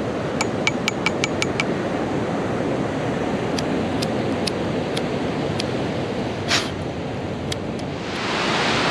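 A found lighter being flicked over and over with sharp metallic clicks: a quick run of about seven clicks in the first second or two, then single clicks every half second to a second. Steady surf and wind sit under the clicks and grow louder near the end.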